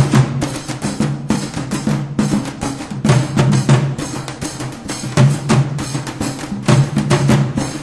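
Drums played in a fast, steady rhythm of several strokes a second, with a deep ringing tone under the strokes.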